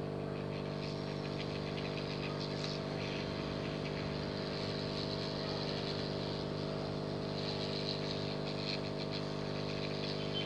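Hot air rework gun running steadily, its blower motor humming under a constant hiss of air, aimed at a phone's circuit board.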